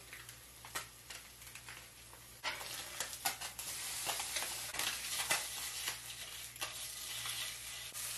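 Crappie fillets sizzling in a nonstick skillet: a quiet sizzle with a few light clicks at first, then suddenly louder and crackling from about two and a half seconds in.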